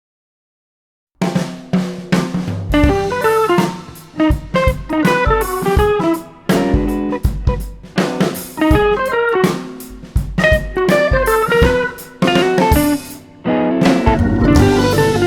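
Silence for about the first second, then a music track starts: a drum kit with snare, bass drum and hi-hat playing a steady beat under guitar.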